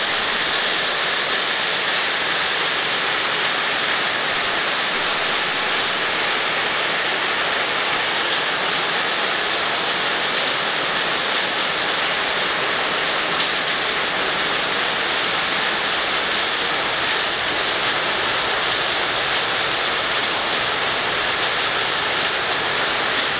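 Heavy rain mixed with hail pelting down on wet pavement and walls, a steady dense hiss with no let-up.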